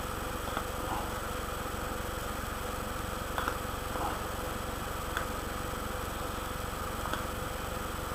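Steady low hum with hiss, and a few faint short clicks scattered through it.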